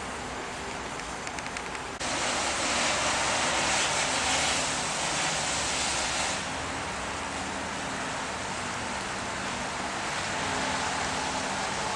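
Steady outdoor rushing noise with a faint low hum underneath. It steps up abruptly about two seconds in and eases back down about six seconds in.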